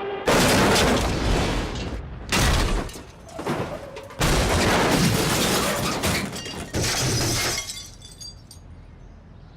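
Cartoon slapstick sound effects: a run of about four loud crashes with shattering and breaking, the last dying away about two seconds before the end.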